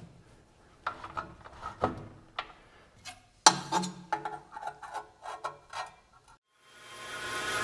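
Clicks, knocks and short scrapes of a bandsaw's aluminium resaw fence being slid and set, and a steel rule being laid and slid on the saw table against the fence and blade. The knocks come at irregular intervals, with a run of quicker light ticks in the second half, and music fades in near the end.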